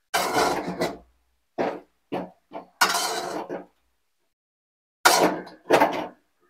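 A spoon stirring and scraping thick rava upma around a cooking pan, in about six separate strokes with short pauses between.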